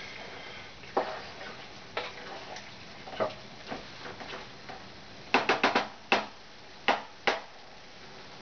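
A cooking utensil knocking and clicking against a pot while a mixture is stirred: a few single knocks spaced a second or so apart, then a quick run of four and three more near the end.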